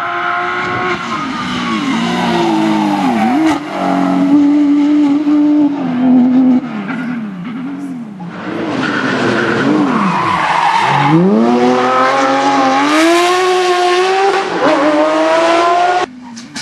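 Porsche 911 GT3 rally car's flat-six engine at full rally pace, its note climbing and dropping again and again with gear changes and lifts, then winding up hard in a long climb in the second half, with tyres skidding on the loose surface.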